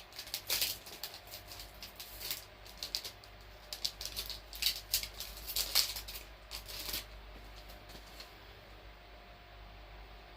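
WNBA trading cards being handled and flipped through by hand: a run of short rustles and clicks that thins out about seven seconds in, with one last click near the end.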